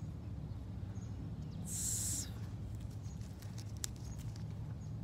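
Faint outdoor ambience: a steady low rumble of wind on the phone's microphone, with a brief hissing rustle about two seconds in and a few light clicks.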